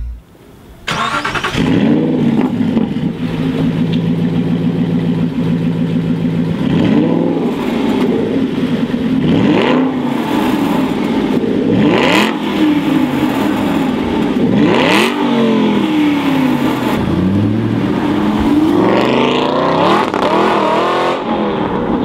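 Aston Martin V8 Vantage AMR's 4.7-litre V8 with secondary catalyst replacement (de-cat) pipes. It starts about a second in with a flare of revs and settles to a steady idle. It is then blipped several times, each blip a sharp rise and fall in revs. Near the end the revs climb and drop in quicker succession.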